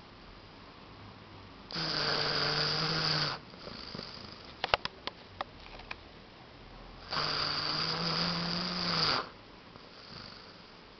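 Shar-pei dog snoring in its sleep: two long, loud snores about five seconds apart, with a quick run of short clicks between them.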